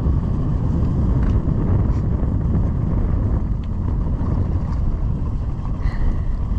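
Steady low rumble of wind buffeting the microphone on an open boat.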